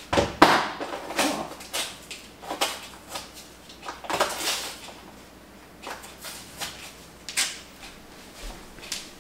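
Irregular rustles, scrapes and light knocks of a plastic tub of shake powder being opened and handled on a kitchen counter.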